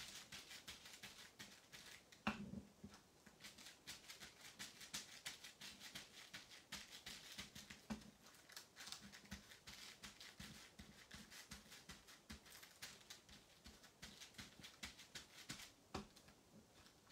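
Faint, quick, soft tapping of an ink dauber dabbed again and again onto the card's raised, textured surface, with a few slightly louder knocks.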